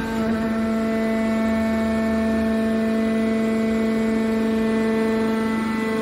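Hydraulic power unit of a copper baler running: its motor and pump give a steady hum with a clear, even whine.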